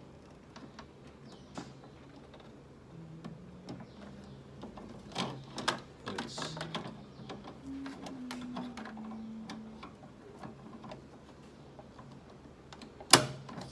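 Small plastic clicks and knocks as an ink cartridge is handled and pushed into the cartridge carriage of an HP Deskjet 2621 printer, ending in one sharp, loud click about 13 seconds in.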